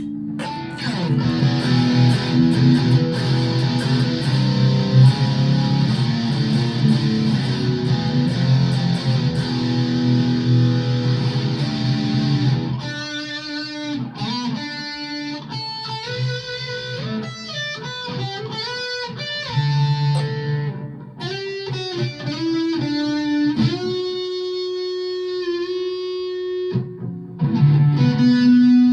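Strat-style electric guitar played through an amp: strummed, sustained chords for about the first 13 seconds, then single-note lead lines with string bends and short pauses.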